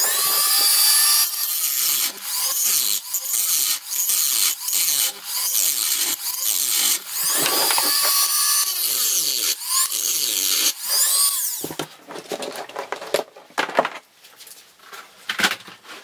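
Dremel rotary tool with a cut-off disc grinding into the head of a seized slotted steel screw, its whine dipping and recovering as the disc bites. The grinding stops about three-quarters of the way through, followed by a few light clicks and knocks.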